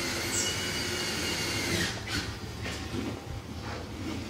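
Workshop noise: a power tool running with a faint steady whine, with a few knocks and clatter around it.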